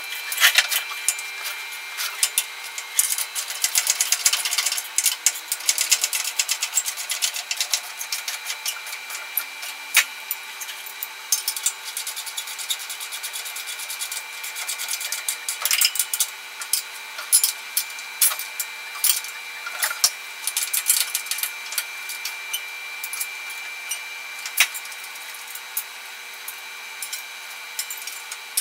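Hand-tool work: many irregular sharp clicks and light knocks with scraping and rubbing, over a faint steady high whine.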